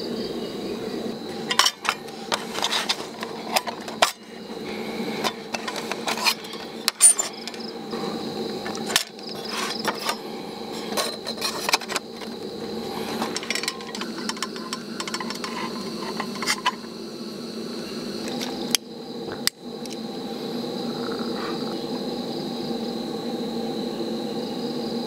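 Scattered clinks and knocks of camping gear being handled, several sharp ones, over a steady drone of insects; the knocking stops about three quarters of the way through, leaving the insect drone.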